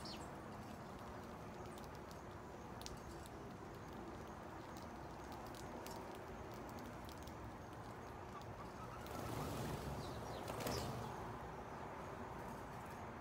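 House sparrows feeding on cracked corn and milo on concrete, with scattered faint ticks of pecking at the seed. About nine seconds in comes a louder whir of wings for about two seconds as the flock flies off.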